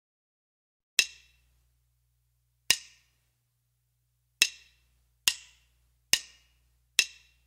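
Six sharp wooden clicks counting in a slow tempo: two clicks spaced far apart, then four at twice the pace, a two-bar count-in before the play-along starts.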